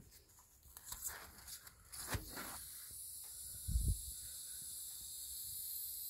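Faint rustling and handling noise of fingers on the wrapped insulation of a water heater pipe, with a single dull thump about four seconds in. A steady faint hiss comes in about two seconds in.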